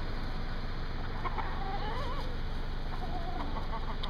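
Chickens clucking, with a few drawn-out wavering calls in the middle and a run of short clucks near the end, over a steady low hum.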